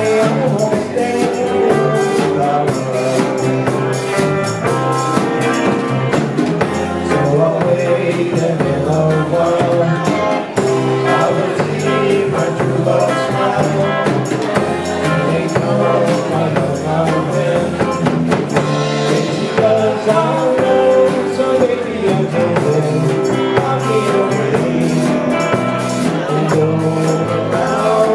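Live rock and roll band playing with a steady, unbroken beat.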